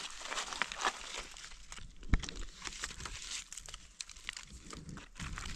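Dry leaf litter and grass rustling and crackling as gloved hands dig out and handle a mushroom on the forest floor. A single sharp click about two seconds in is the loudest sound.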